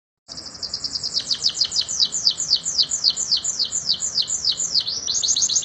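Domestic canary singing a long rolling trill of rapidly repeated high notes, each falling in pitch. It starts abruptly after a moment of silence, slows to about five notes a second, then quickens again near the end.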